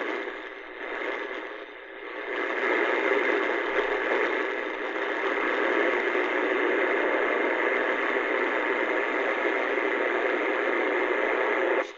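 Kaito KA550 portable radio's speaker on shortwave, playing a steady noisy, unidentified signal with no voice in it. It cuts off suddenly near the end as the tuning moves on.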